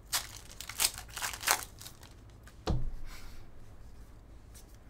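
Foil wrapper of a Panini Origins Basketball card pack being torn open by hand, with a few sharp crinkling rips in the first second and a half. A single dull thump follows about halfway through, then a soft rustle as the cards come out.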